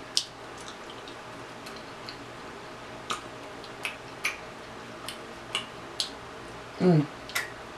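Close-up eating sounds: scattered sharp, wet clicks and smacks from chewing rotisserie chicken and picking the shredded meat apart with fingers, about a dozen over the stretch. A short falling hum from the eater comes about seven seconds in.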